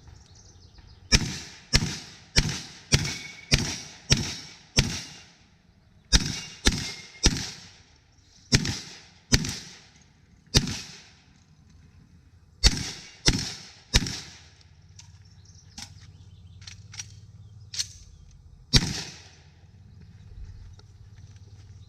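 Rock Island Armory VR-80 12-gauge semi-automatic shotgun fired rapidly in strings, about seventeen shots in all. It opens with a fast run of seven, about two shots a second, then groups of three, two, one and three, and each shot rings out after it. Fainter sharp ticks come between the last groups, and a final loud shot falls near the end.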